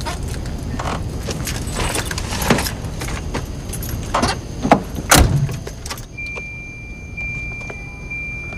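Someone getting into a car: keys jangling and the car door clicking and knocking, with a heavy thump about five seconds in as the door shuts. A steady high tone follows for the last couple of seconds.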